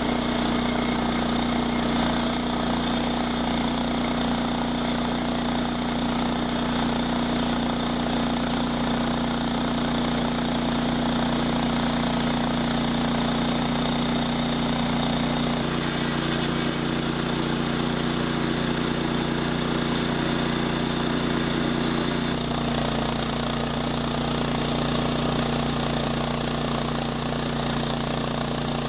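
An engine running steadily at a constant speed; its pitch shifts abruptly about halfway through and again about three-quarters of the way in.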